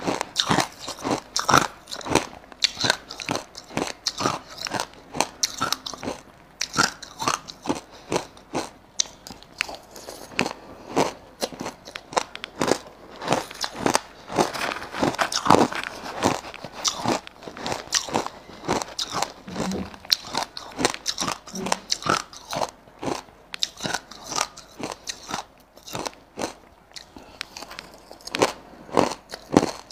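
Mouthfuls of crushed ice crunched and chewed close to a clip-on microphone: a dense, irregular run of sharp, crackling crunches.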